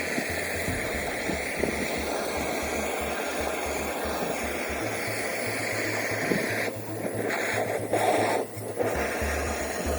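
Steady hissing noise over background music. The hiss drops away briefly about seven seconds in and again shortly before the end.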